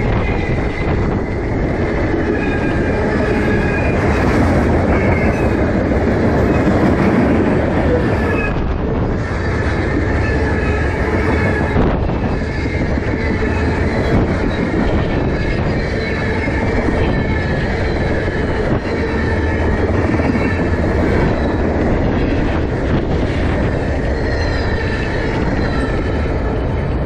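Freight cars (flatcars and tank cars) rolling past close by: a steady rumble and clatter of steel wheels on rail, with a wavering high squeal from the wheels running through it.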